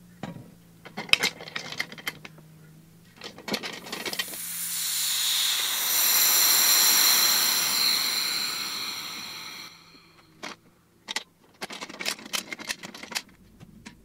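Metal clicks and knocks as the lid of a resin-casting pressure pot is fitted and clamped down. Then compressed air hisses into the pot through its valve for about five seconds, swelling and then fading, with a high whistle in it. More sharp clicks of metal fittings follow.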